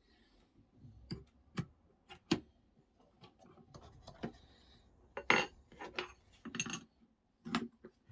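Steel router cutter and spanner clinking against the router's collet, nut and table insert as the cutter is fitted and the nut is tightened: a series of irregular, sharp metal clicks and clinks.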